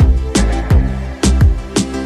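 Background music with a steady beat: punchy low drum hits and sustained pitched notes.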